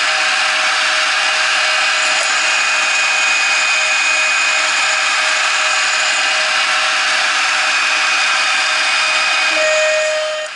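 CNC router spindle (0.75 kW) with a 2 mm end mill cutting aluminium angle: a steady whine over continuous cutting noise.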